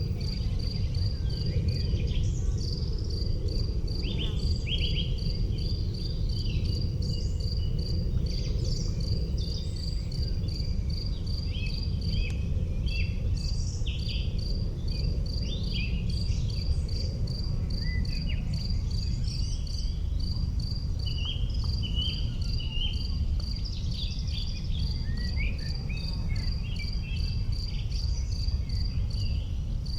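An insect chirping in a steady, even pulse, about four chirps a second, high-pitched, over a constant low rumble, with scattered short high calls of other insects or birds.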